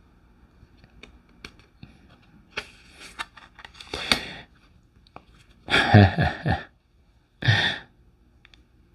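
Faint clicks and rustles of tarot cards being handled, then two loud, short breathy bursts, the first about six seconds in and the second about a second and a half later.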